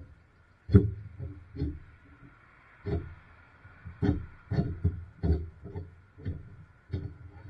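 Irregular dull knocks and thuds, about ten of them spaced unevenly, from a package of large steel U-bolts being handled and unpacked. The loudest knock comes about a second in.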